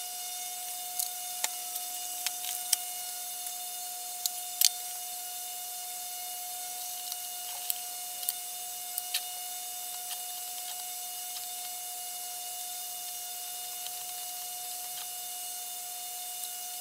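Scattered sharp clicks and taps of small metal pen-kit parts being handled and set into a pen press, over a steady faint hum. The clicks are bunched in the first few seconds and again about eight to nine seconds in.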